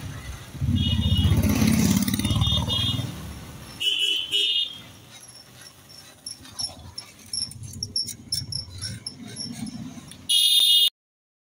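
Ground firework fountains (anar) burning with a loud hissing roar and crackle. The roar dies down after about four seconds to scattered crackles. Short groups of high beeping tones sound over the roar, and the sound cuts off abruptly near the end.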